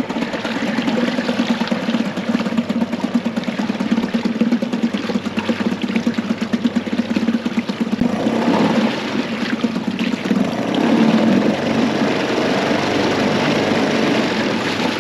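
2001 Yamaha 5 hp two-stroke outboard, a single-cylinder engine, running in a test barrel after being put into gear at idle. In the second half the revs come up and the propeller churns the barrel water.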